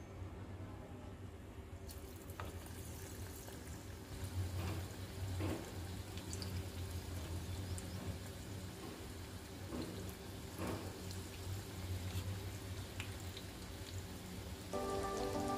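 Onion bhaji (battered onion fritters) deep-frying in hot oil, a steady sizzle with scattered crackles that starts about two seconds in, over a low steady hum.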